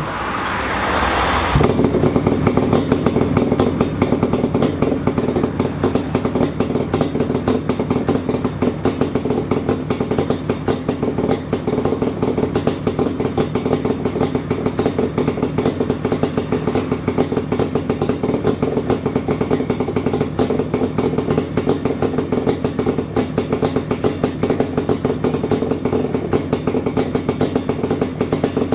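Yamaha RZ250's two-stroke parallel-twin engine starting from cold after two days unused, catching about a second and a half in and then idling steadily through a Sugaya collector chamber exhaust with the silencer fitted.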